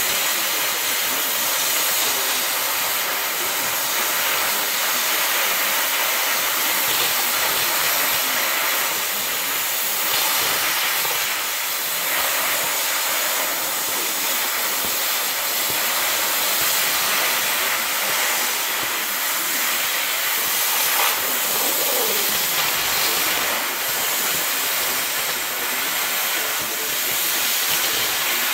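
Cutting torch running on steel plate with a steady hiss.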